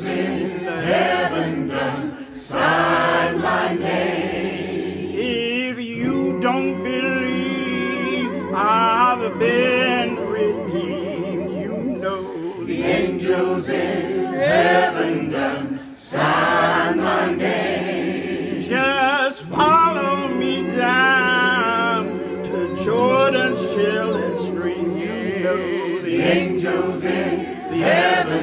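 Mixed choir of men and women singing a slow African American spiritual a cappella, without instruments. At times a single voice with a wide vibrato rises above the group.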